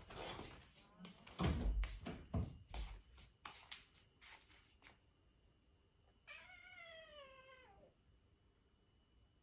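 A domestic cat gives one long meow, about a second and a half, falling in pitch at the end, about six seconds in: a cat asking its owner for food. Before it come a few knocks and thumps, the loudest sounds here.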